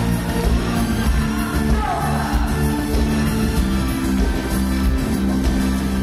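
Live pop-rock band playing, with drums and bass guitar under a woman singing into a microphone, heard through a concert hall PA.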